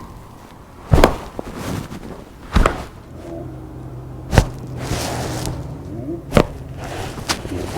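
Chiropractic adjustments to the spine: four sharp cracks or thumps, one every second and a half to two seconds.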